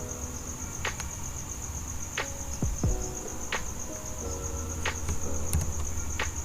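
A cricket trilling steadily in the background, joined by a sharp tick that repeats about every second and a half, over a low hum.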